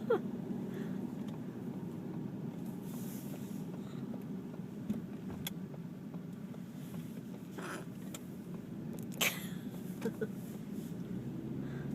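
Steady road noise inside a moving car, with sudden hiccups breaking through: one right at the start and a louder one about nine seconds in, followed by two short faint blips.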